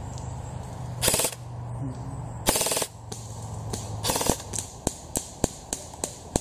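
Airsoft rifle firing three short full-auto bursts about a second and a half apart, then a run of single shots at about three a second near the end.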